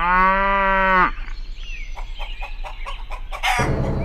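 A cow moos once, about a second long, with its pitch dropping at the end, followed by a run of light scattered clicks. Music comes in near the end.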